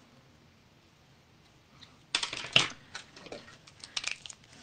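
Quiet for about two seconds, then a run of light, irregular clicks and taps as small craft tools and supplies are handled on a work table.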